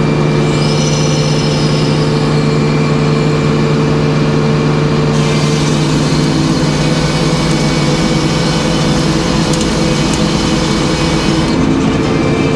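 Large circular sawmill running with a steady drone. About five seconds in, the blade enters a poplar log and a loud sawing hiss rises over the drone. The hiss drops away about a second before the end as the blade clears the cut.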